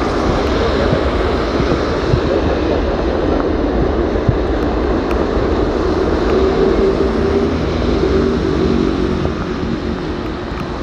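Airbus A330 freighter's jet engines running on the runway, a steady rumble with a droning tone that strengthens a little after halfway, under storm wind and rain noise.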